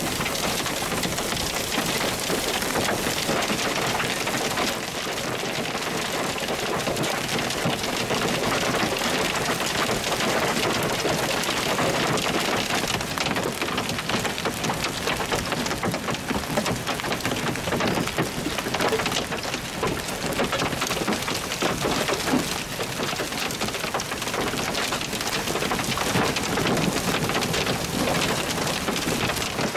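Hail pelting down in a storm: a dense, steady clatter of countless small impacts that keeps up without a break.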